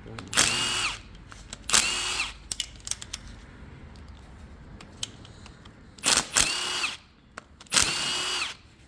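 Cordless power driver run in four short bursts, each motor spin winding down as the trigger is released, as bolts are spun out during an engine teardown. Small tool clicks come between the bursts.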